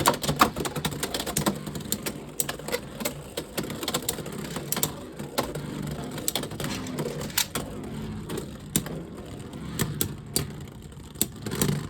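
Two Beyblade X spinning tops, Phoenix Feather and Unicorn Sting, spinning and clashing in a plastic stadium: a steady whir broken by many quick, irregular clacks of the tops striking each other and the stadium walls.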